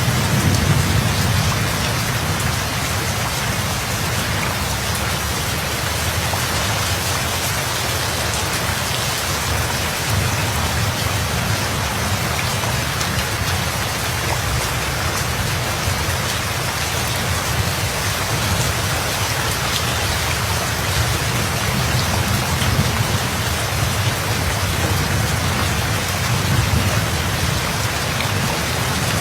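Steady heavy rainfall with a low rumble of thunder underneath, swelling slightly at the start and again near the end.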